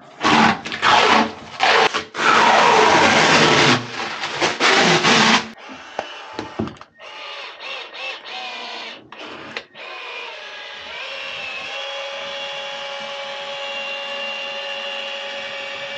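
Harsh, loud bursts of tool noise from cutting or scraping work for about the first five seconds, then a quieter steady sound with several held tones.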